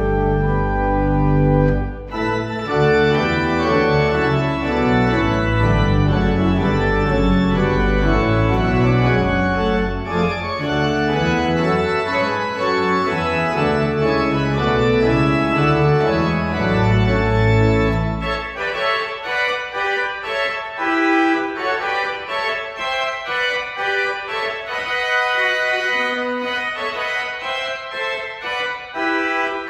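Church organ playing closing music in full chords over a deep pedal bass; about two-thirds of the way through the bass drops out and the higher parts carry on alone with quicker notes.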